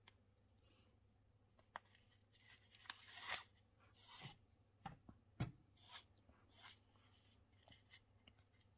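Faint scratchy rustles and small ticks of a needle and embroidery thread being drawn through the thread-wrapped surface of a temari ball, with fingers rubbing on the ball.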